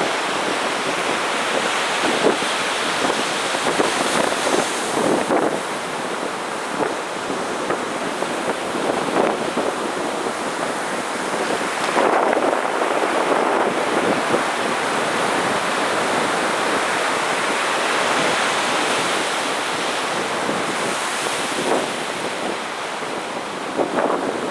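Sea surf breaking and washing on a sandy beach in a continuous wash, swelling louder with each breaking wave, with wind buffeting the microphone.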